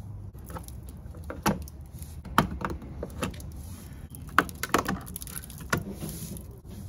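Plastic push-pin retainers being pried out of a plastic engine underguard with a flathead screwdriver: a string of sharp, irregular clicks and snaps of plastic and metal.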